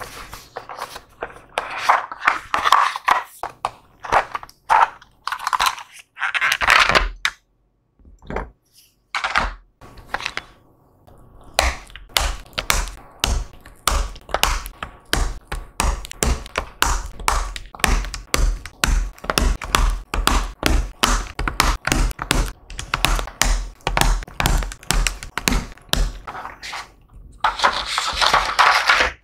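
Mechanical keyboard parts handled and pressed together during assembly: many sharp plastic clicks and taps, packed close together from about twelve seconds in, with stretches of noisier rubbing sounds at the start and near the end.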